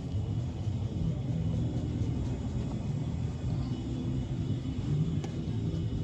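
Bissell MultiClean vacuum running over carpet: a steady low rumble, with a single sharp click about five seconds in.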